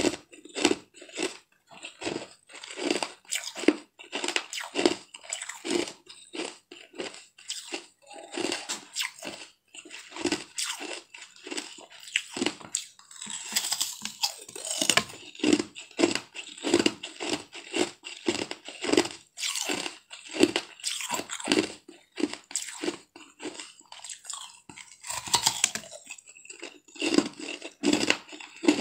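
Close-up biting and chewing of blue frozen 'ice cookie' treats: a steady run of crisp crunches, roughly two a second.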